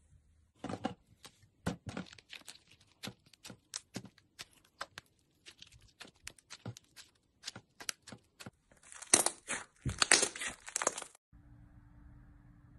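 Slime being squeezed and worked by hand, making a rapid series of sharp clicks and pops. Near the end they grow thicker and louder, then stop abruptly, leaving a faint steady hum.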